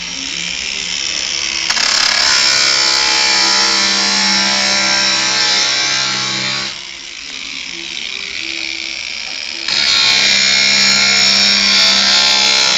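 Electric angle grinder with an abrasive disc running, and twice biting into the glass front of a flat-screen TV: a loud hissing grind from about two seconds in for some five seconds, then again from about ten seconds in until the end. Between the cuts the motor spins free.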